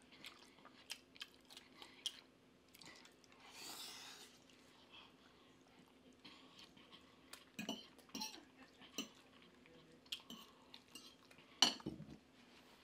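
Eating sounds up close: quiet chewing and biting with scattered light clicks of a fork against a plate, and a sharper clink near the end. A short hiss comes about four seconds in, over a faint steady hum.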